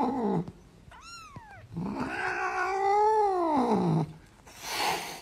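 Domestic cat meowing: a short meow about a second in, then one long drawn-out meow that rises and falls in pitch, and a short breathy noise near the end.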